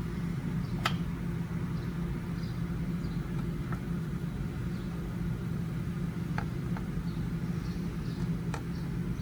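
A few light metal clicks and taps as the cam plate and oil pump are worked off a Harley Twin Cam engine, over a steady low hum.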